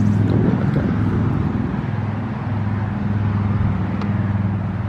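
A motor or engine running steadily, a low even hum.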